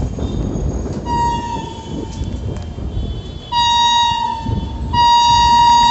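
Horn of an approaching WAP-5 electric locomotive: a blast of about a second early in, then a longer blast from past halfway that gets louder near the end.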